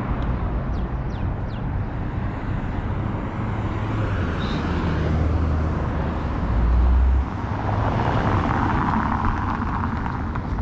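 Road traffic on a wide multi-lane city road: a continuous hiss of cars passing, swelling as one goes by about eight seconds in.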